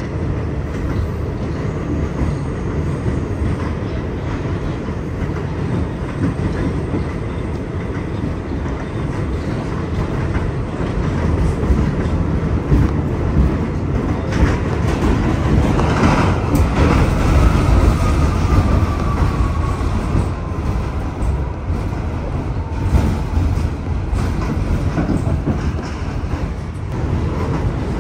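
New York City subway 1 train running on the rails: a steady rumble with the clatter of wheels, growing louder about halfway through, and a thin whine that slowly falls in pitch a little past the middle.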